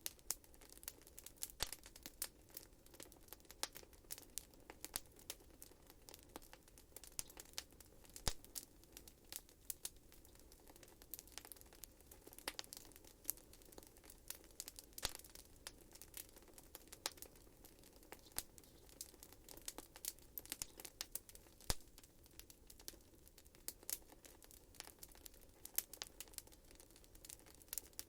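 Wood fire burning in a fireplace: irregular sharp crackles and pops, a few louder snaps, over a faint low hiss of the flames.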